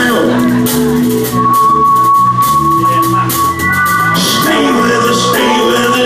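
A live band playing soul music: a stepping bass line and drums with fast shaker-like high ticks under keyboard and guitar, with a long held high note in the middle and singing in parts.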